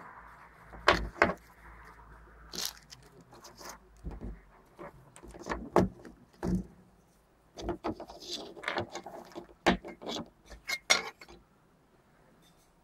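Handling noise from unboxing a phone: irregular clicks, taps and rustles of the box, packaging and handset being handled, dying away about a second before the end.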